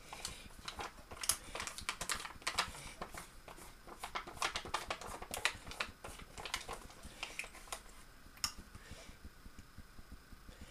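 A metal utensil scraping and tapping inside an aluminium foil tray, scraping out melted chocolate, in quick irregular clicks and scrapes. It stops with a last sharp click about eight and a half seconds in, and only faint scraping follows.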